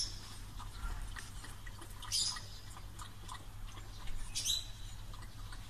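Small dog lapping water from a collapsible travel bowl: soft, quick, irregular wet clicks and laps. A few short high chirps stand out about two and four and a half seconds in.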